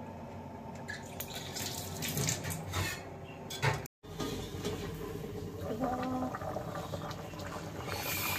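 Chicken stew bubbling in a wide metal pan on a gas stove, with a few knocks and clinks of the pan and its lid. The sound drops out for an instant partway, and near the end a short rush of noise comes as the lid is lifted off the boiling stew.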